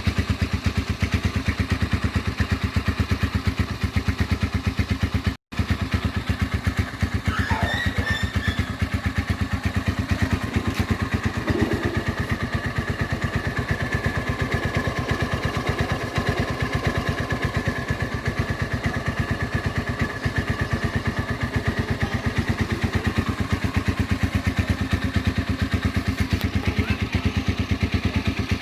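Motorstar Z200x 200cc single-cylinder motorcycle engine idling steadily, with an even firing rhythm.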